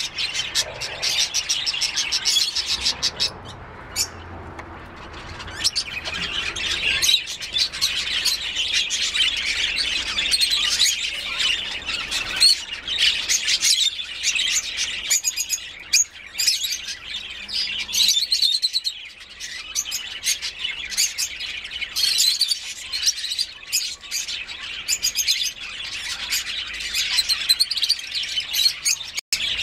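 Rosy-faced lovebirds chattering: a steady stream of rapid, high-pitched chirps and twitters, briefly thinning out about three to six seconds in.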